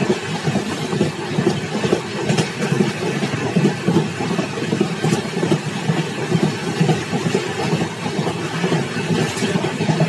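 Track sound of an Indian Railways express train running at speed, heard from a coach window: a steady rumble and clatter of wheels on rail, with a few sharp clicks.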